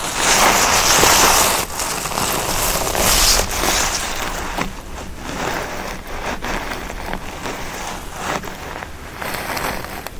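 Footsteps and trampling on forest grass and moss, a close, crackling rustle of feet pressing through vegetation. The densest, loudest rustling comes in the first second and a half, followed by a run of shorter separate steps.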